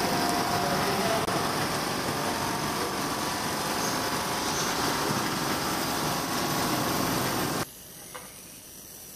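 Automated laser marking and feeding line running, a steady mechanical motor noise with hiss that cuts off abruptly near the end.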